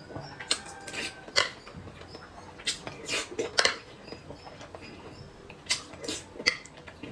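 Close-miked eating of whole boiled eggs: a series of sharp wet mouth smacks and clicks in small clusters, mixed with a metal spoon clinking against a metal bowl.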